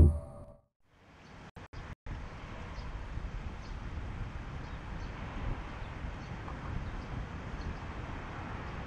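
Steady low rumbling noise, like wind buffeting an outdoor microphone, starting about a second in after a moment of silence and broken by a few brief dropouts near two seconds in.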